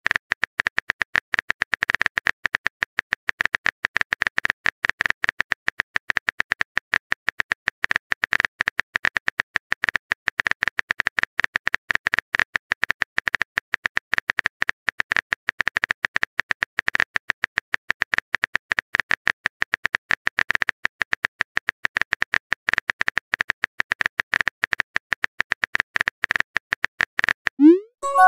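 Phone-keyboard typing sound effect: a long run of rapid, evenly spaced clicks that stops near the end. It is followed by a short rising pop-like chime as a chat message is sent.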